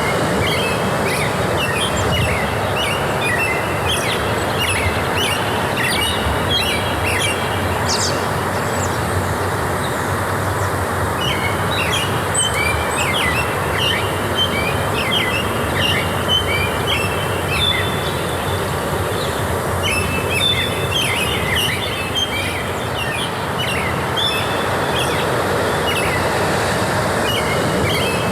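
Forest ambience: small birds chirping in quick runs of short notes, in three spells, over a steady rushing background noise.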